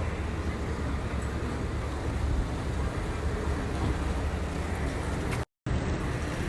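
Steady low road rumble of a moving car, heard from inside the cabin. The sound cuts out completely for a moment about five and a half seconds in.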